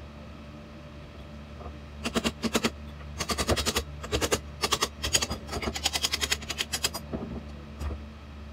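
Ratchet wrench clicking in several quick bursts of rapid clicks as bolts on a Harken roller furling drum are worked, over a steady low hum.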